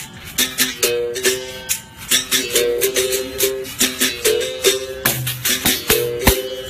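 Music: a shaker rattling in a quick steady rhythm under short repeated two-note plucked-string figures, with a low bass note joining about five seconds in.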